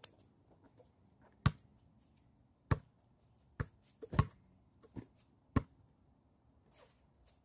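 A rubber ball bouncing on pavement: about six sharp thumps at uneven intervals.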